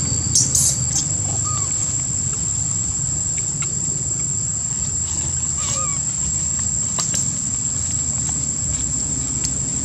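Steady, high-pitched drone of insects in the forest, held at one pitch throughout over a low rumble, with a few short clicks and faint brief chirps.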